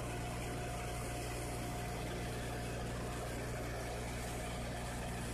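Engine running at a steady speed with a low hum and a steady whine above it, the rig-side equipment working while cement grout is pumped down the well.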